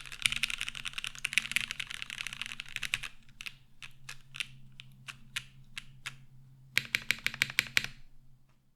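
Typing on a Noxary 378 mechanical keyboard with lubed Cherry MX Black Clear-Top (Nixie) linear switches in an aluminum plate, with GMK keycaps. A fast, dense run of keystrokes for about three seconds gives way to slower single key presses, then a last quick burst, and the typing stops.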